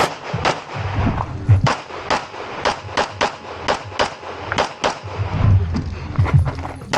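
Rapid gunfire during a practical-shooting stage: a long run of single shots, two to three a second, in quick strings with short gaps, and a low rumble between some of the shots.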